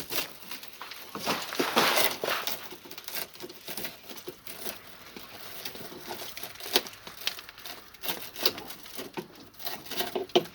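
Old urethane window adhesive being scraped and cut off the car's rear window flange with a sharp hand tool: a run of irregular scraping and crackling strokes with small clicks.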